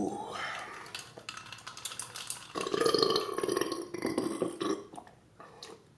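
A man belching at length after a meal: a long, rough burp, loudest and longest about halfway through.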